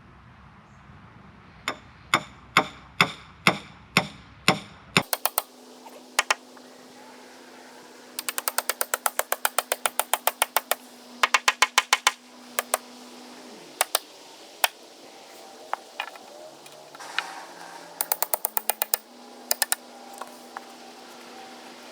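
Metal form stakes being hammered in around concrete form boards: seven sharp, even strikes about two a second. After about five seconds come quicker runs of sharp clicking strikes over a steady low hum.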